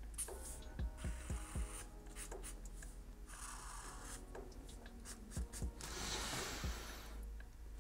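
Marker pen drawing on paper in many short scratching strokes as lines are thickened and hatched, with a longer stroke about six seconds in.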